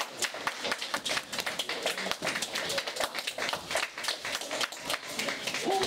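Applause: a small group of people clapping, with many quick, irregular claps.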